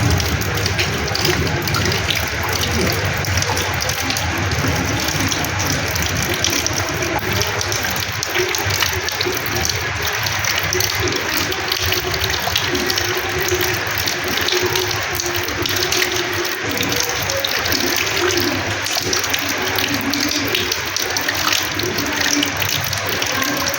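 Rainwater splashing onto a house's terrace floor: a steady, unbroken rush of falling water.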